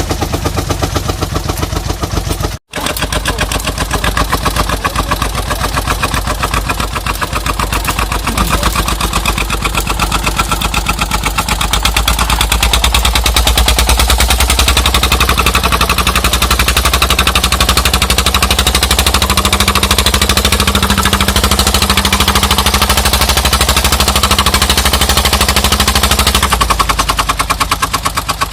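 Dong Feng single-cylinder diesel engine of a truck running under load, its exhaust chugging in rapid even beats. It grows louder and heavier from about twelve seconds in and eases off a couple of seconds before the end.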